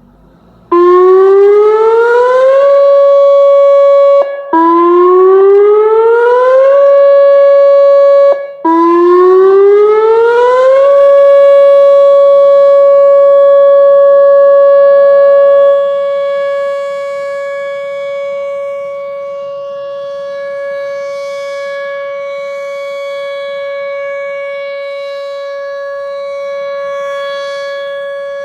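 Whelen 2806 electronic outdoor warning siren winding up three times, three rising sweeps each broken off abruptly, then settling into a steady 560 Hz alert tone during a siren test. The tone turns quieter about sixteen seconds in.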